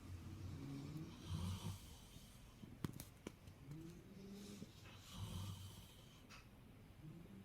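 A middle-aged man snoring: a string of faint, rough, drawn-out snores, one every second or two. Two sharp clicks sound about three seconds in.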